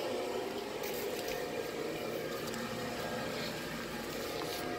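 Steady hum of an airblown inflatable's built-in blower fan, with a few faint clicks.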